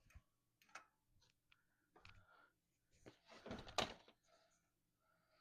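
Faint clicks of parts being handled, then a short rustling clatter about three and a half seconds in, as a hydraulic disc brake caliper is fitted over the rear rotor of a mountain bike.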